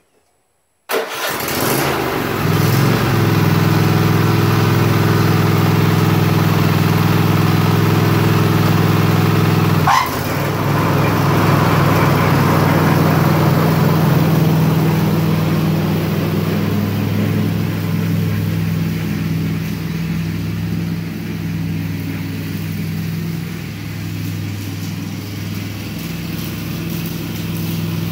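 Cub Cadet XT-1 riding mower's Kohler V-twin engine started with the key, catching almost at once about a second in, then running steadily. A sharp clunk comes about ten seconds in, and the engine grows somewhat fainter over the last several seconds as the mower drives away.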